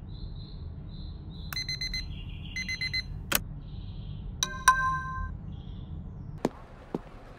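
A phone alarm going off in two short bursts of rapid beeping, over faint high chirping and a low steady hum. A two-note chime follows about halfway through, then a few sharp taps near the end.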